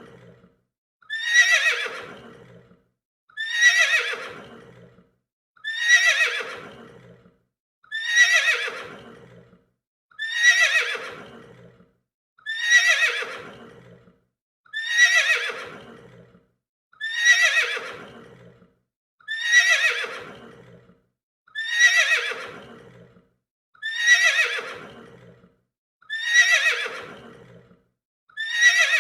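Horse whinnying: the same neigh repeated over and over about every two seconds, each call starting high and falling in pitch as it fades.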